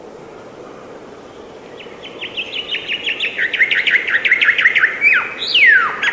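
A bird singing one song phrase: after a few seconds, a fast series of short, sharply falling notes that drop in pitch and grow louder as they go, ending near the end in one longer downward slurred whistle.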